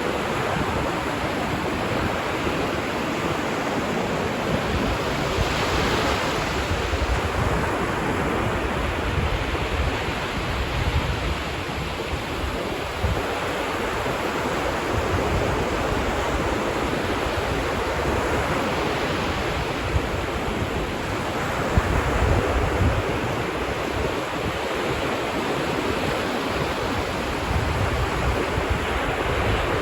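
Ocean surf washing onto a beach: a continuous rush of breaking waves that swells louder about six seconds in and again around twenty seconds.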